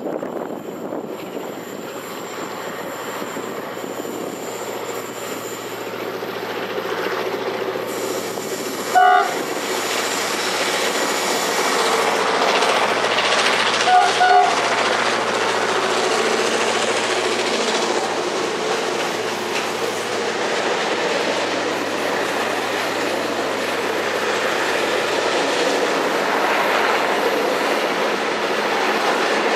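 Container freight train passing, the steady noise of its wagons growing louder as it nears. The locomotive's horn sounds one short blast about nine seconds in, then two quick blasts about five seconds later.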